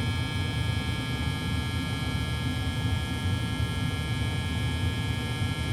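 1991 Rheem gas furnace running, a steady hum with a constant high whine over it.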